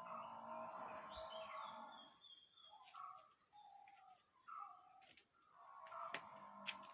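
Faint bird calls: short pitched notes repeating, with a few sharp clicks near the end.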